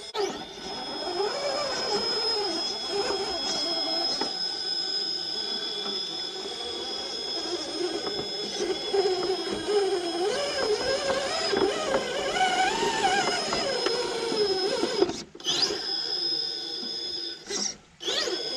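RC rock crawler's electric motor and geared drivetrain whining under load as it crawls over rocks. The pitch wavers up and down with the throttle. The sound drops out briefly twice near the end.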